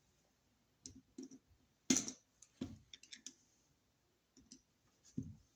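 Scattered clicks and light knocks of hand tools and wire on a wall receptacle as the white neutral wire is looped around its silver terminal screw and tightened. The loudest knock comes about two seconds in.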